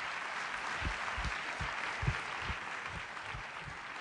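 Large audience applauding, the clapping easing slightly toward the end, with a steady run of low thumps, a little over two a second, beneath it.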